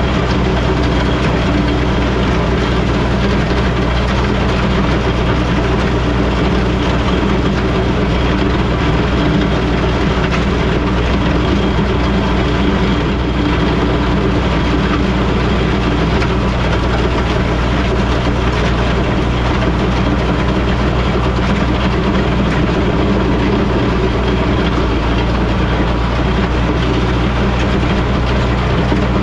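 International Harvester Farmall 460 tractor's six-cylinder engine running steadily while it grades a gravel driveway.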